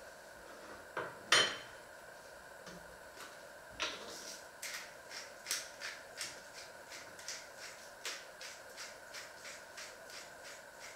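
Kitchen utensil noise at the counter: one sharp knock about a second in, then, from about four seconds, a steady run of light taps or clicks about three a second.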